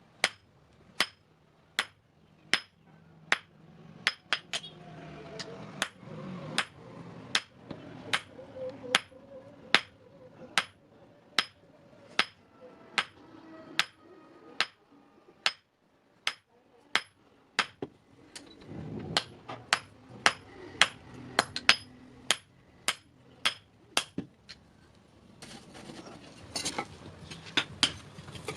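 Hand hammer striking steel on an anvil in a steady rhythm of about one and a half blows a second, each with a short metallic ring: forging a scissor blade. Near the end, quicker, lighter taps join in.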